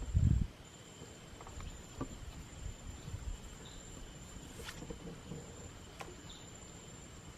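Insects, crickets or the like, calling in one steady high-pitched tone with a fainter lower tone beneath it. A short dull low thump comes right at the start, and there are a few faint clicks.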